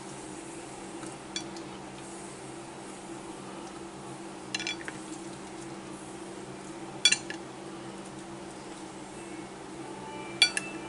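Sharp clinks on a ceramic dinner plate piled with squash seeds as it is handled: four scattered clinks a few seconds apart, the last two loudest, over a steady low hum.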